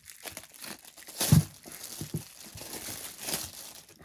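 Crinkling of packaging as a small bag is handled and opened, with a thump about a second in.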